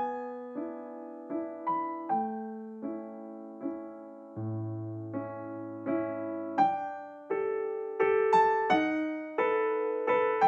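Background piano music: a slow melody of struck notes, each ringing and fading, over a low bass note held for about two seconds near the middle.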